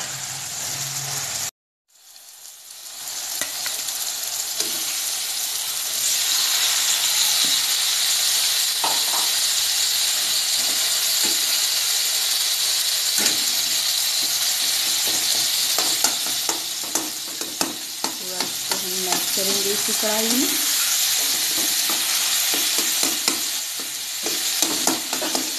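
Mashed boiled potato and brinjal frying in mustard oil in a metal kadhai: a steady sizzle, with a metal spatula scraping and clicking against the pan as it is stirred. The sound drops out briefly near the start, then the sizzle builds and holds.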